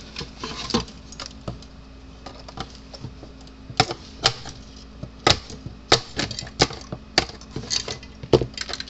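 Irregular clicks and knocks as a stuck fuse mount is pushed and worked at in an electric fence charger's housing, with a few sharper knocks in the second half.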